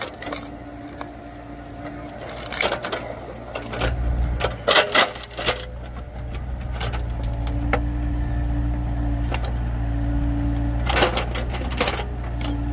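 Mini excavator's engine running steadily under load while its bucket digs around a large tree stump, with a held hydraulic tone that comes and goes as the boom strains. Sharp knocks and clatters of the bucket against soil and roots come in clusters, the loudest about five seconds in and again near eleven seconds.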